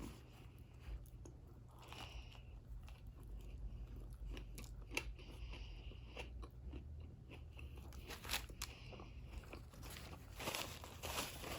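A person chewing a Subway sub on Italian herbs and cheese bread, faint and close, with many small crunches and clicks of the crust between the teeth.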